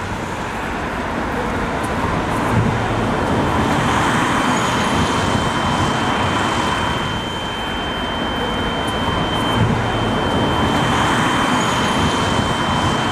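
Loud, dense city traffic noise that starts abruptly, with a thin steady high-pitched tone coming in about three seconds in and holding.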